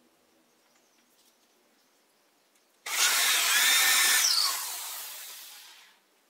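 Corded Bosch electric drill boring a hole into a magnolia log with a twist bit: it starts suddenly about three seconds in, runs at full speed for about a second and a half, then winds down and fades out over the next second and a half.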